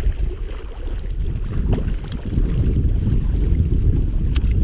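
Wind buffeting the microphone: a steady low rumble, with a few faint clicks near the middle and near the end.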